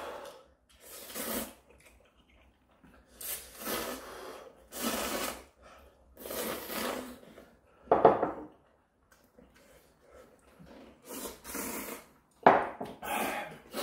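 Ramyeon noodles being slurped in a run of short, noisy slurps, one every second or so, by two people eating. About eight seconds in there is a louder breathy sound with some pitch in it.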